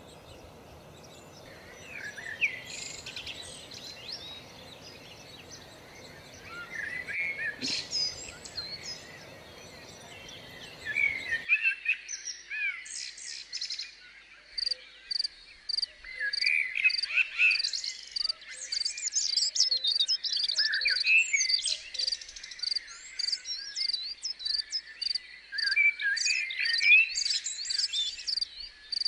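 Small songbirds chirping and calling in many short, quick notes. About halfway through, a steady background hiss drops away abruptly, and a rapid, evenly spaced ticking of about three strokes a second joins the chirps.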